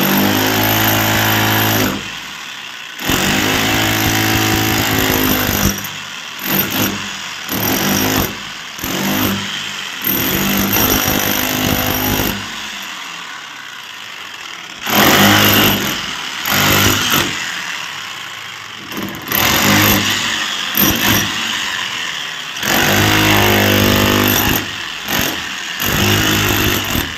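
A handheld electric power tool working a brick wall, cutting the chase for water pipes. It runs in repeated bursts of a few seconds, starting and stopping abruptly.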